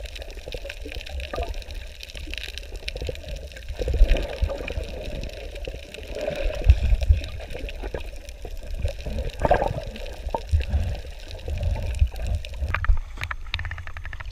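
Water sloshing and gurgling, with uneven low rumbling throughout.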